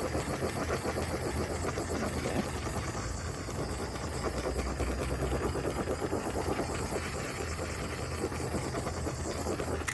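Small handheld torch flame hissing steadily as it is swept over wet epoxy resin to pop surface bubbles; it cuts off at the very end.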